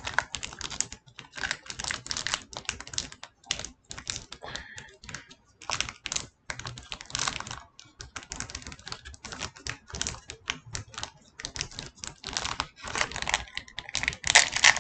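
Foil wrapper of a Pokémon Astral Radiance booster pack crinkling and crackling in the hands as it is worked open. The crackling grows louder and denser near the end, as the wrapper is torn with the teeth.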